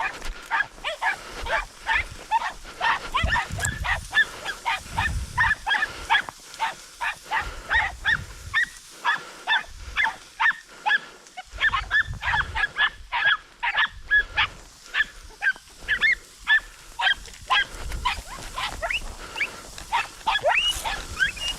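Podenco hunting hounds giving tongue on a rabbit's trail: rapid, repeated high yelps, about three a second, that keep on without a break.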